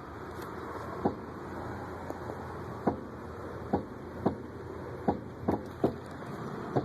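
Front suspension of a 2004 Acura TSX clunking: about eight sharp knocks at uneven intervals over a steady rush of background noise. The clunk persists even though the axles, ball joints, stabilizer links and lower control arms have all been replaced.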